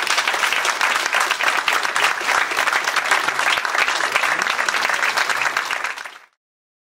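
Audience applauding: dense, steady clapping from many hands that cuts off suddenly about six seconds in.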